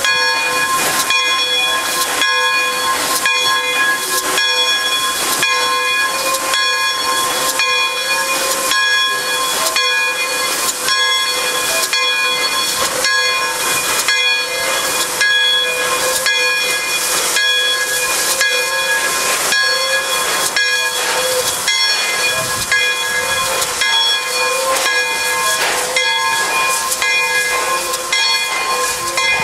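Pere Marquette 1225, a 2-8-4 Berkshire steam locomotive, working on the move: a loud, steady steam hiss carrying several held high tones, with regular exhaust beats through it.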